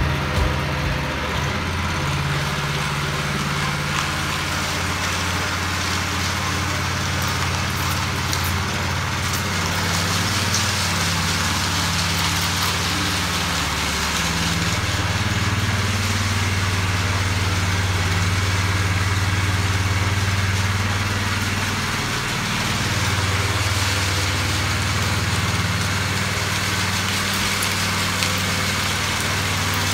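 Small gas engine of a walk-behind power trowel running steadily as it finishes a freshly poured concrete floor, its note shifting a little now and then and dipping briefly once.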